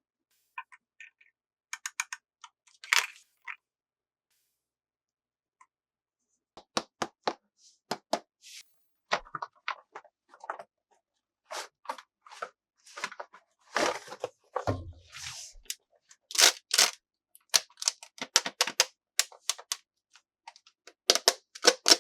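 Plastic toy packaging and pieces being handled and opened, a run of sharp clicks, crackles and tearing. A few sounds early, a short pause, then nearly continuous from about seven seconds in.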